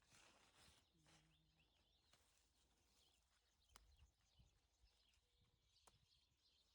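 Near silence: faint outdoor ambience with a few faint high bird chirps and a couple of soft clicks.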